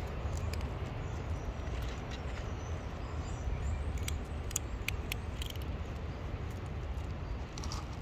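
A cat crunching dry kibble, heard as scattered crisp crunches, over a steady low background rumble.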